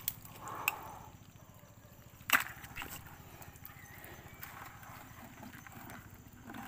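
A mud crab splashing into shallow water in a plastic bucket, followed by a sharp knock on the bucket a little over two seconds in and a smaller knock just after.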